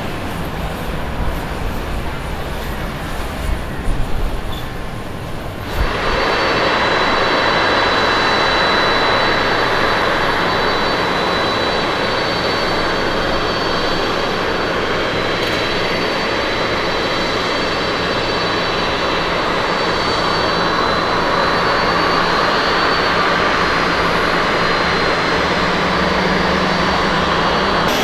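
Jet engines of a Boeing 777 climbing out after takeoff, heard as an uneven low rumble. About six seconds in the sound cuts abruptly to the steady whine and hiss of jet airliner engines at low taxiing power, with a few thin high tones over a low hum.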